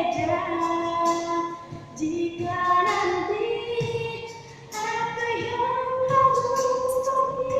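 A woman singing an Indonesian pop song, holding long notes with short breaks about two and four and a half seconds in.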